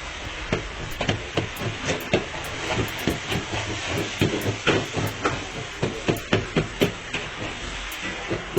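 Chicken sizzling in a karahi, with a metal ladle knocking and scraping against the pan every second or so while it is stirred.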